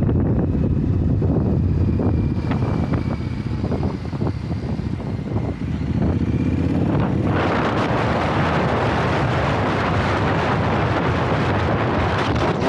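Triumph Scrambler 900's parallel-twin engine running under a heavy rush of wind on the microphone while riding. About six seconds in the engine note rises as the bike accelerates, and the wind noise then grows much louder.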